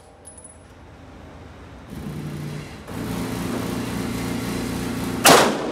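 A steady mechanical hum starts about two seconds in and grows louder, then a single loud rifle shot goes off near the end and rings off in the enclosed range.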